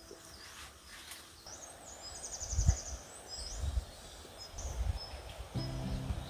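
Small birds chirping, with one quick trill about two and a half seconds in, over a few low dull thumps. Background music comes in near the end.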